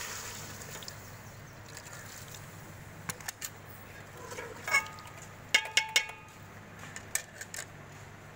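Steel ladle clinking and knocking against an aluminium cooking pot as chicken pieces in water are stirred: a handful of sharp clinks, some with a short metallic ring, the loudest cluster about five to six seconds in, over a low steady hum.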